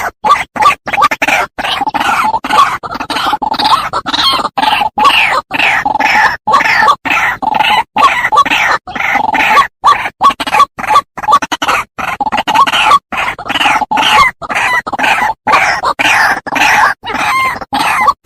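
White-breasted waterhen calling: a rapid string of short, repeated calls with brief breaks between them.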